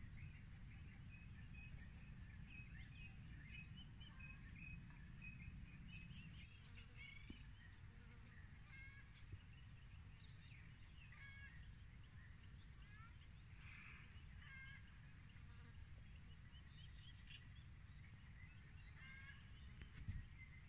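Faint birds chirping and calling in short repeated notes over a low steady rumble, with a brief click near the end.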